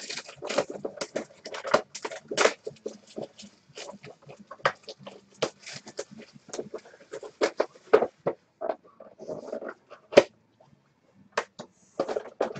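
Hands handling and opening a cardboard hobby box of hockey cards: an irregular run of taps, scrapes and crinkles as the box is turned over and its lid flap pulled open, with one sharp tap near the end.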